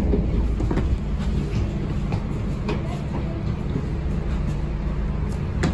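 Scania OmniCity double-decker bus on the move, heard inside the cabin: a steady low drone from the engine and road, with scattered clicks and rattles from the body and fittings and a sharper knock near the end.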